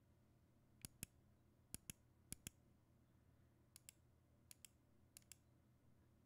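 Stabilized keys on an Aula F75 mechanical keyboard, in stock form, pressed and released one at a time. There are six separate pairs of sharp clacks, each a keystroke going down and springing back up.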